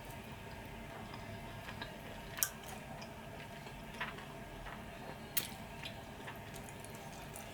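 Close-miked mouth sounds of someone eating sauced chicken wings: a handful of sharp, wet clicks and smacks spaced a second or so apart, the strongest about two and a half seconds in and again about five and a half seconds in, over a faint steady hum.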